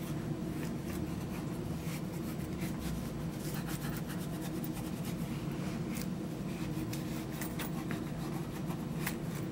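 Wool dauber rubbing and scraping dye into the inside of a leather knife sheath: a steady run of faint quick scratchy strokes over a low steady hum.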